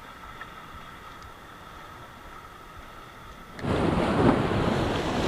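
Sea waves breaking on a rocky shore, with wind buffeting the microphone, coming in suddenly and loud about three and a half seconds in. Before that there is only a faint steady high hum.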